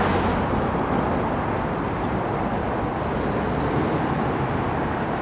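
A vehicle on the move, recorded from a moving camera: steady engine and road-and-wind noise with a low rumble underneath.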